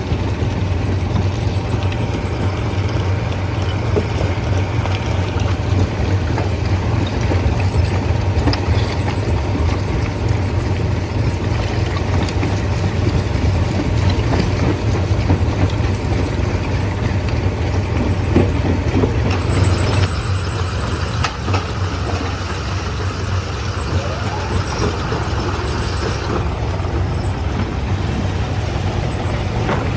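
Heavy diesel machinery running steadily with a deep, unbroken hum. About two-thirds of the way through, a higher hiss joins it for several seconds, then stops.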